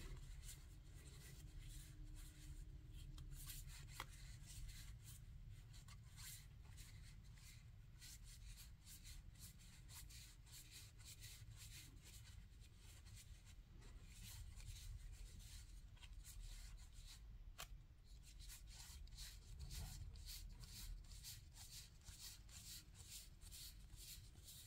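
Faint rustling and soft ticking of Four Souls game cards as they are leafed through by hand, card sliding against card, over a low steady room hum.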